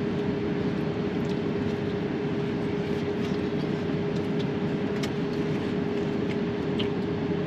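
Steady hum of a vehicle running inside its cabin, with one constant tone held throughout and a few faint ticks.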